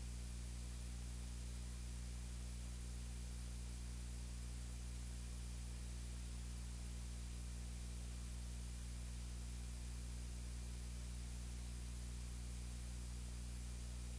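Steady electrical hum with a low buzz of evenly spaced tones and a faint hiss, unchanging throughout. No voice comes through, which points to a recording whose speech has dropped out and left only the hum of the audio chain.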